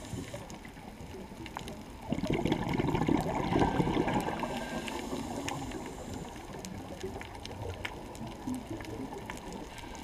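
Underwater recording: a scuba diver's exhaled bubbles gurgle past the camera in a louder surge lasting a few seconds, starting about two seconds in, over a steady underwater background with scattered faint clicks.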